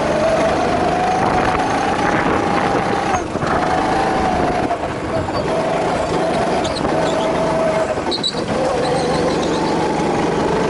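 Go-kart engine running hard, its pitch holding high and steady with two short dips where the throttle is eased, and falling near the end.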